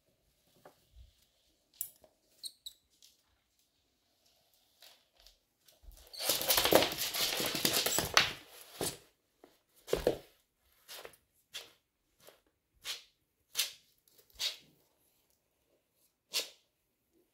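Argentine black-and-white tegu biting down on a live mouse: a loud scuffle lasting about two seconds, then about a dozen sharp crunching bites at irregular intervals of half a second to a second.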